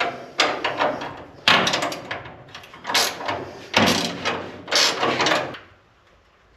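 Hand ratchet wrench clicking in five quick runs of strokes as a hinge bolt is undone, stopping about five and a half seconds in.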